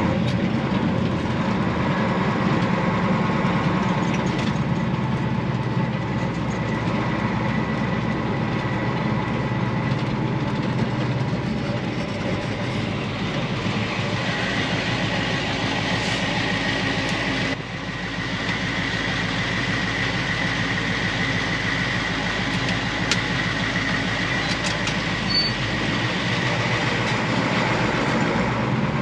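Caterpillar diesel of a Ford 8000 farm truck running as the truck drives slowly, heard from inside the cab with rattles from the cab. A steady high whine joins about halfway through, and the sound drops briefly about two-thirds of the way in.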